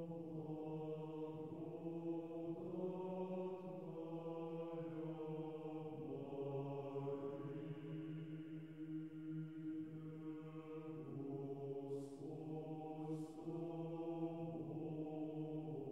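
Background music: chanted choral singing, voices holding long, steady notes that change pitch every few seconds.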